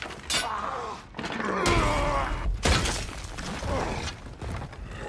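Stone masonry breaking and crashing down in a series of heavy impacts, with pitched groaning sounds that fall in pitch between the crashes.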